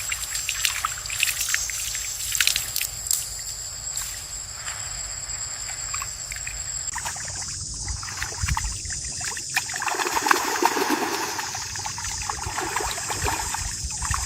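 Water trickling and splashing, with many small splashes and clicks and a steady high-pitched whine that turns into a broader hiss about seven seconds in.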